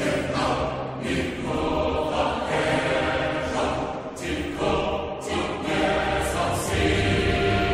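Choral music: a choir singing slow, sustained phrases, each chord held for about a second before moving on.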